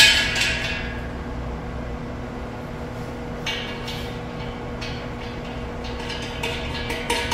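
Leg leveler being screwed by hand into the end of a square steel table leg: a sharp click at the start, then a few short scrapes and clicks of the threaded stem turning in the metal.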